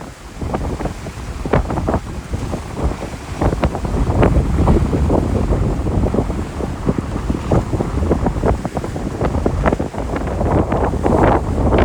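Strong wind buffeting the microphone: a constant low rumble with crackling gusts, heavier about four seconds in and again near the end.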